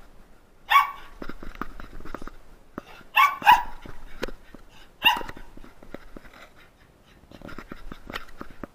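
A young pet dog barking in four short barks: one about a second in, two close together just past three seconds, and one near five seconds, with softer scuffles and clicks between them.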